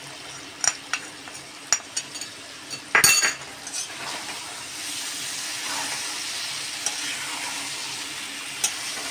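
A metal spatula stirs potatoes, aubergine and tomatoes in a metal kadhai, with scattered clinks and taps and a loud clatter about three seconds in. Steady sizzling of the frying vegetables and spices rises from about halfway on.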